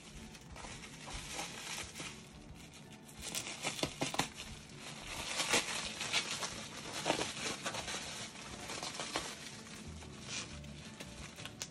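Packing wrap crinkling and crackling as it is handled and unwrapped from around a crystal, with a quick run of small crackles that grows busier and louder in the middle stretch.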